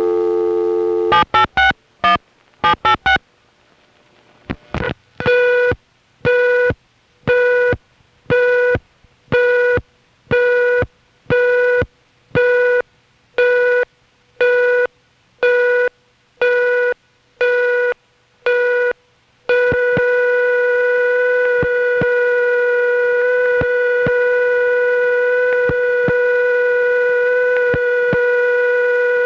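Telephone number being dialled as a quick run of short digit tones, then a #5 crossbar exchange's local charge-test line answering with a click and a string of about fifteen beeps, one a second, as it flashes off and on hook; staying on past seven or eight beeps means the call should be charged. The beeps give way about two-thirds of the way through to a steady tone with a little wow and flutter, which comes from the exchange's rotating tone generator, not the tape.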